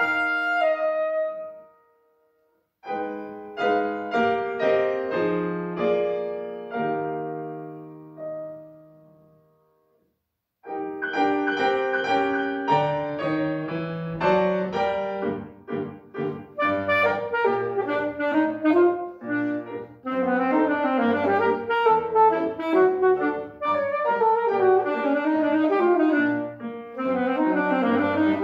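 Saxophone and grand piano playing a classical duet. A phrase ends, then after a brief pause come slow chords that ring out and fade away. After a second pause both instruments launch into a fast, busy passage.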